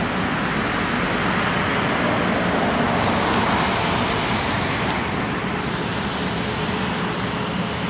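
Airbus A350's Rolls-Royce Trent XWB turbofan engines running steadily at low thrust as the airliner rolls slowly along the runway.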